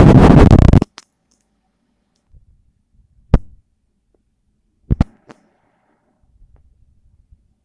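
Handling noise on the recording device's microphone: a loud rubbing scrape that stops under a second in, then two sharp knocks about three and five seconds in, with faint low rumbles between.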